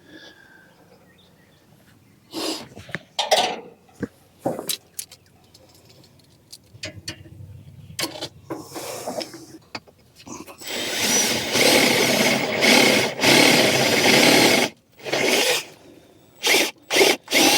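Nitrogen blown through the refrigerant lines and condenser coil to purge them before soldering: several short hissing blasts, then one long blast of about four seconds, then more short blasts near the end.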